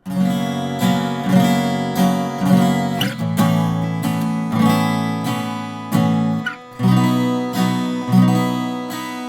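Acoustic guitar strummed in a steady rhythm, the chords changing a few times. The guitar is a Martin X Series with a koa-pattern high-pressure-laminate body.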